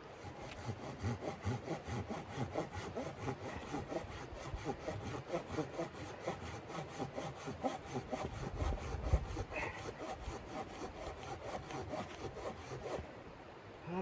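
Small hand saw cutting through a log with quick, even back-and-forth strokes, stopping about a second before the end.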